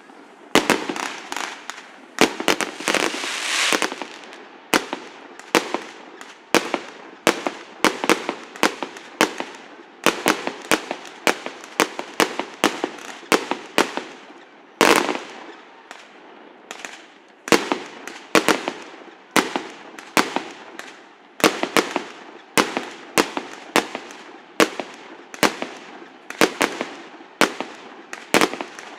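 Fireworks display: a steady run of sharp bangs, about two a second, with a spell of crackling near the start and a heavier burst about halfway through.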